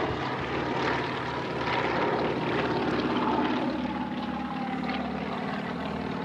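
Two Sukhoi aerobatic planes' nine-cylinder radial engines droning steadily overhead as the pair climb and pull over in formation, with a higher propeller whine that slowly falls in pitch.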